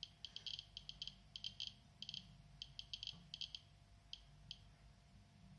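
Radiation dosimeter set to voice every detected gamma quantum as a click: a gentle crackle of short, high clicks at random intervals, some bunched close together, marking individual gamma counts. The clicks stop about four and a half seconds in.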